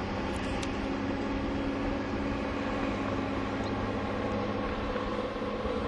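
A steady mechanical hum with several held tones over a noisy haze, unchanging throughout.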